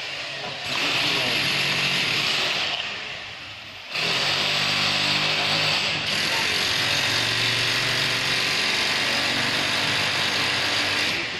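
A power tool running steadily with a high, hissing whine; it dies away about three seconds in and starts again abruptly a second later.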